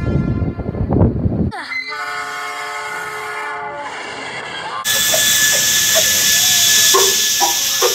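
A low train rumble is followed by a diesel locomotive's multi-note air horn sounding one steady chord for about three seconds, replayed through a phone speaker. Then the steam locomotive 3237 vents steam with a loud, continuous hiss.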